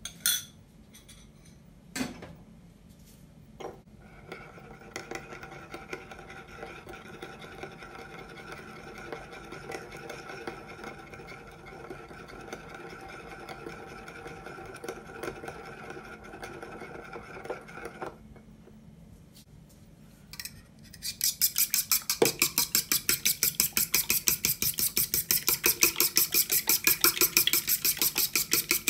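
A fork stirring sauce in a small ceramic bowl, scraping steadily with a faint ringing. After a short pause, a fork beats two eggs in a bowl, clattering fast and evenly at about five strokes a second.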